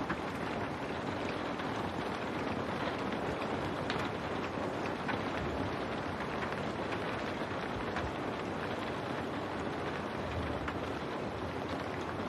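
Steady rain falling on window glass: an even wash of noise with a few separate drop ticks standing out.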